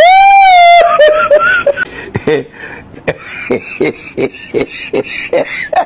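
A person's voice: a loud high-pitched squeal held for almost a second and dipping slightly in pitch, then short broken sounds and a run of rhythmic chuckling laughter, about two to three pulses a second.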